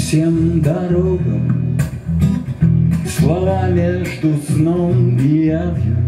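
A man singing with his own acoustic guitar accompaniment, the guitar's low notes sounding steadily under the melody.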